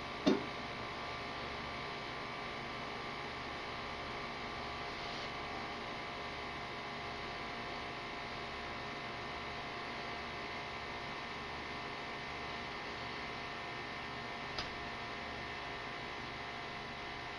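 Steady electrical hum with a faint hiss. A short knock comes just after the start and a fainter click near the end.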